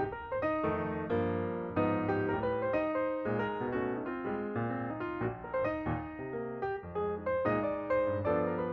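Background piano music, a steady run of notes played at a moderate pace.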